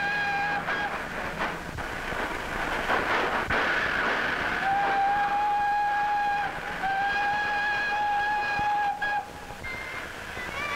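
Train whistle blowing long, steady blasts over the rumble of the moving train: one blast ends about half a second in, then two long blasts with a brief break between them sound from about four and a half to nine seconds in.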